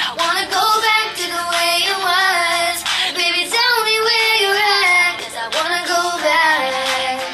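A pop song playing, with a young female voice singing a melody over backing music.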